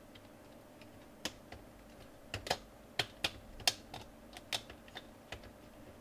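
Irregular plastic clicks, about ten of them, loudest in the middle, as hands press down along the keyboard of a Toshiba NB505 netbook to seat it back into the frame.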